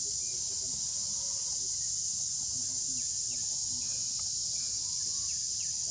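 Insects droning steadily at a high pitch, with a few faint short chirps over it.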